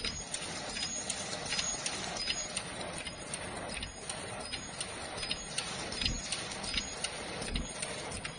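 Automatic ultrasonic mask ear-loop welding machine running, with a regular mechanical clacking about twice a second over a steady hiss.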